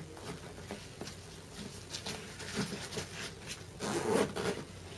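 A SOG Ninja Day Pack being handled: its main-compartment zipper is pulled and the pack's fabric rubs and rustles, with scattered scrapes and clicks.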